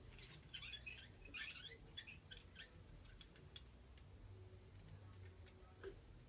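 Padded swivel office chair squeaking: a quick run of short, high-pitched squeaks as a foot bears down on its tilting seat during lunges. The squeaks fade out about three and a half seconds in.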